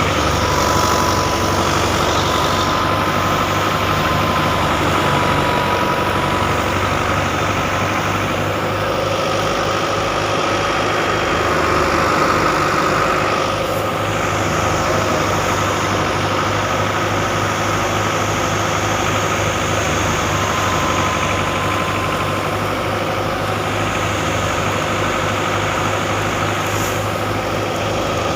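An engine running steadily with an even low pulse, and a thin steady whine above it.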